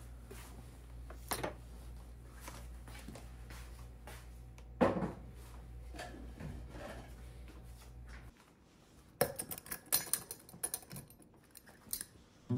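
Glass storage jars and kitchen items being handled: soft knocks, a sharper knock about five seconds in, then a run of light clinks and rattles near the end. A low steady hum stops about eight seconds in.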